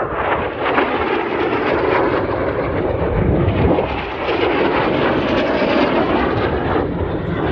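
Loud roar of racing airplanes flying low and fast past the course, the engine noise swelling as they pass, with a brief dip about halfway through.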